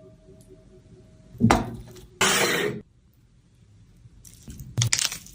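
Kitchenware clinking and clattering: a metallic ring fading out in the first second, a sharp knock, a short burst of hiss that cuts off suddenly, and more clattering near the end.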